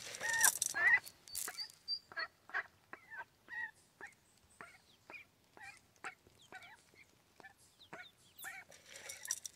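Mallard hen calling in a run of short, repeated quacks, about two a second, loudest in the first second, while she feeds.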